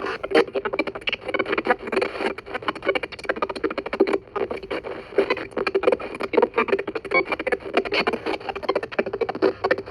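Ghost box sweeping the FM radio band: a rapid, choppy stream of split-second fragments of radio stations and static, chopped many times a second.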